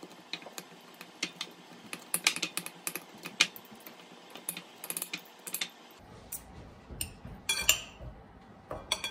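Two forks shredding leftover pot roast, their tines clicking and scraping against the dish in quick, irregular taps.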